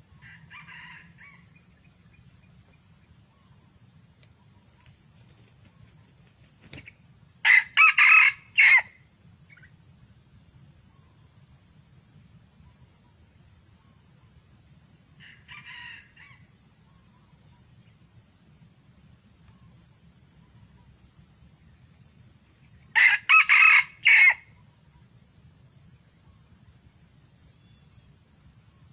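Junglefowl roosters crowing: two loud close crows about fifteen seconds apart, each a short broken call of about four notes, with fainter crows in between. A steady high insect drone runs throughout.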